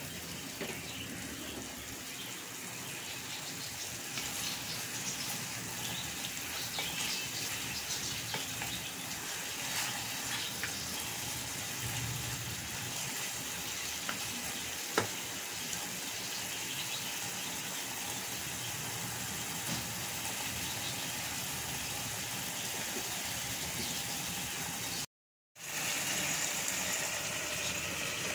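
Chicken masala sizzling and bubbling in its juices in an aluminium pot, with a steady hiss and occasional scrapes and taps of a wooden spatula; one sharp tap stands out about halfway through. The sound drops out for a moment near the end.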